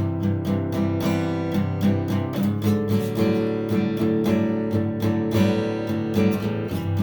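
Yamaha F335 steel-string dreadnought acoustic guitar played, chords sounding in a steady, even rhythm.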